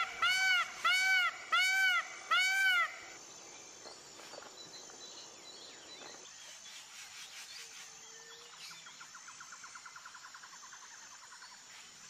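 Indian peafowl (peacock) calling: about five loud, nasal calls in quick succession, nearly two a second, each rising and falling in pitch, stopping about three seconds in. After that only faint small-bird chirps and a soft rapid trill remain in the background.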